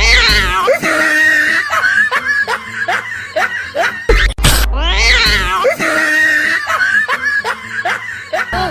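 A canned cartoon-style laughing sound effect, played twice in a row over background music; each time it opens with a low thud and a high cry that falls in pitch, then runs on in quick short laughs.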